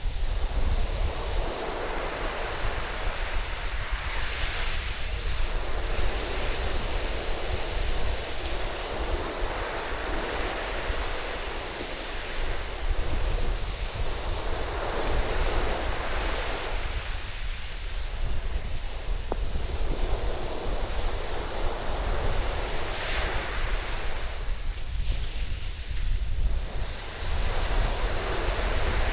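Surf breaking and washing up a sandy beach, swelling and fading every several seconds. Strong wind buffets the microphone as a steady low rumble.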